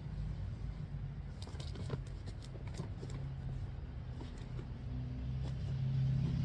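A low engine-like hum, growing louder near the end, with scattered light clicks and rustles over it.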